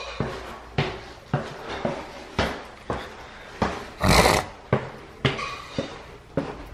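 Footsteps on a hard tiled floor and stairs at a steady walking pace, a step a little more than every half second, with one louder noisy burst about four seconds in.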